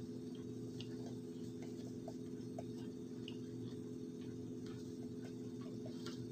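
Faint, irregular little clicks and crunches of powdered cornstarch being scooped from a plastic container with a metal spoon and eaten, over a steady low hum.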